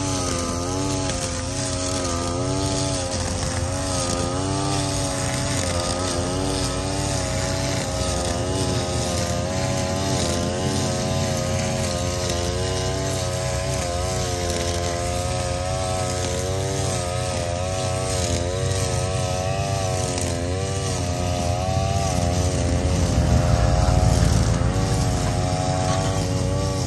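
Gas string trimmer (weed eater) engine running, its pitch wavering up and down as the throttle and the cutting load change. It gets louder near the end.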